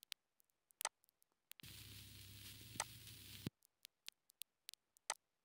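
Sparse, isolated clicks and pops lifted off a digitized vinyl record, played back as the clicks-only output of iZotope RX 8's De-click module: this is what the de-clicker would remove. About one and a half seconds in comes a two-second stretch of faint hiss with a low hum under it.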